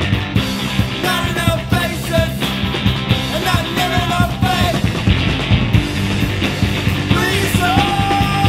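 Rock song with a sung lead vocal over electric guitar, bass guitar and drums, ending on a long held vocal note.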